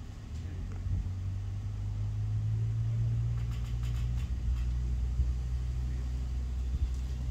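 An engine running steadily with a low hum, idling at an even pitch.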